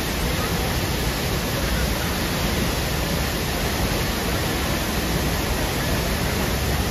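Large waterfall plunging into its pool: a steady, loud rush of falling water.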